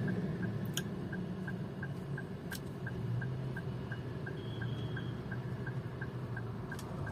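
Car indicator flasher ticking steadily, about three clicks a second, over a low steady hum in the car. A faint short beep sounds about four and a half seconds in.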